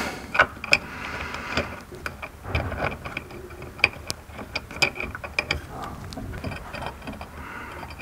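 Seat-belt mounting bolt being tightened through a steel floor plate: irregular ratchet-like clicks with short metallic scrapes.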